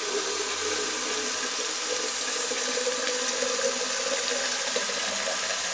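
Water from a tap running steadily into a stainless steel jug as it fills.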